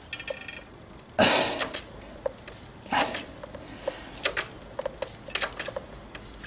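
Handling noises from brake bleeding: a short squeak at the start, two brief rustling bursts, and a scatter of small clicks from the plastic catch bottle and its tube on the brake caliper's bleed nipple.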